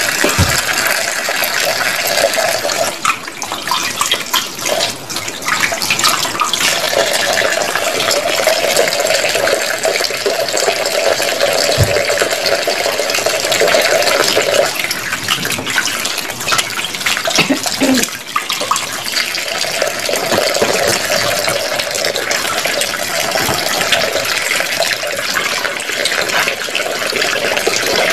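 Kitchen tap running steadily into a plastic tub of guavas in a stainless steel sink, the water splashing as hands rub the fruit under the stream. A couple of brief knocks sound, about half a second and twelve seconds in.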